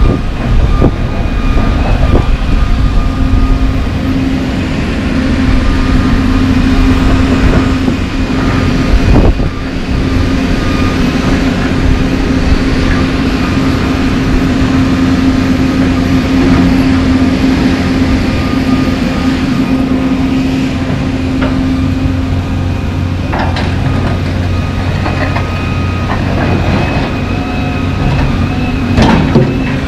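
John Deere 350D LC excavator's diesel engine running steadily under load, with a constant hydraulic whine, as it rips up asphalt paving and swings to dump it. Slabs of asphalt crack and clatter against the bucket at the start and again near the end.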